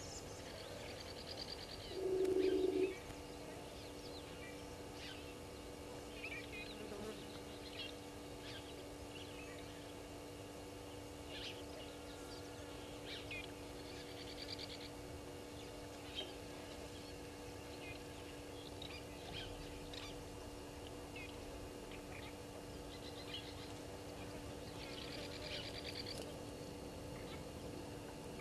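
Wild birds chirping, with short high calls scattered throughout and one louder, lower call about two seconds in.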